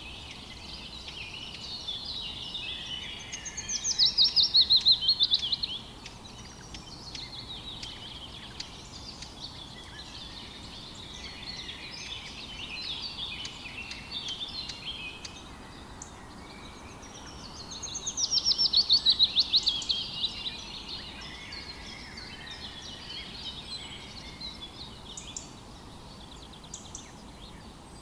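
Chorus of songbirds chirping, with one bird twice singing a loud, fast trill that falls in pitch, each lasting about two and a half seconds: once about four seconds in and again about eighteen seconds in. A faint steady rush of river water runs underneath.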